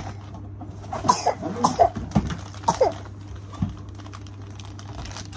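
A few short bursts of a small child's voice, non-word sounds between about one and three seconds in, over a steady low hum.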